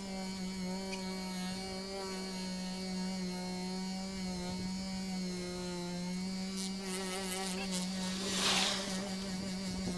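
Dual-action polisher running steadily with a steady hum, its pad working compound over a car's painted bonnet. A louder rushing hiss swells briefly about eight and a half seconds in.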